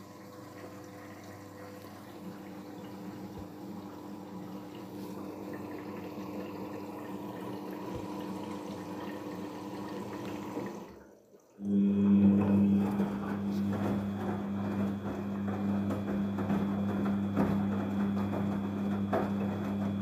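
Daewoo DWD-FT1013 front-loading washing machine in a cotton wash, its drum motor humming with water sloshing as the drum turns. The motor stops for about a second some eleven seconds in, then starts again with a louder hum.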